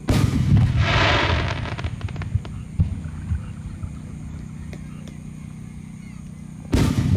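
Aerial firework shells bursting: a loud boom right at the start that dies away over a couple of seconds with a brief sizzling crackle, then a second boom near the end.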